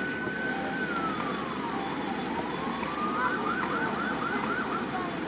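Emergency vehicle siren sounding over steady background noise: a slow wail that falls and rises again, then switches to a fast warbling yelp about three seconds in.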